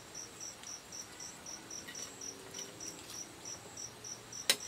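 Insect chirping steadily, about four short high chirps a second. A sharp knock sounds near the end, the loudest moment.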